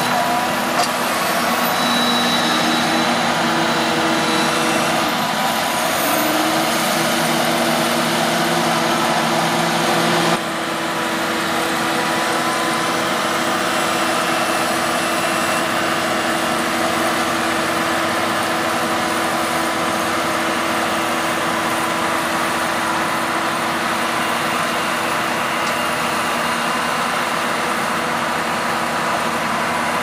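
John Deere 6190R tractor's six-cylinder diesel engine running steadily under load as it drags a silage trailer through deep mud. About ten seconds in, the level drops slightly and the tone shifts.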